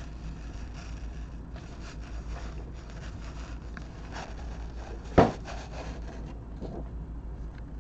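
Trading-card boxes and packs being handled on a table: soft rubbing and scraping, with one sharp knock about five seconds in.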